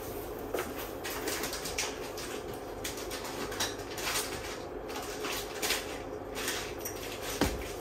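Cat claws scratching and scrabbling at a cardboard scratching house in short, irregular rasps, with a dull bump near the end.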